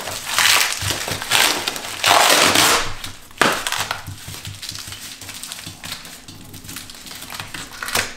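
Plastic bubble wrap and foam packing crinkling and tearing as it is pulled off a metal chair stand, in loud rustling bursts during the first three and a half seconds and quieter rustling after.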